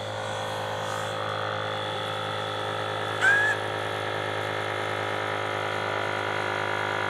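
Scanstrut twin-stage electric inflation pump running steadily in its first, low-pressure high-volume stage while it inflates a textile fender, a steady motor hum. A short rising chirp sounds about three seconds in.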